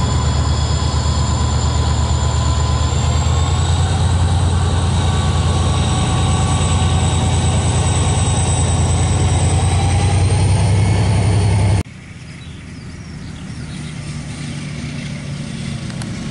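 KiwiRail DL-class diesel-electric locomotive passing close with a loud, steady low engine drone and a thin high whine, hauling passenger carriages. About twelve seconds in the sound cuts to a train heard far off, much quieter and slowly growing louder as it approaches.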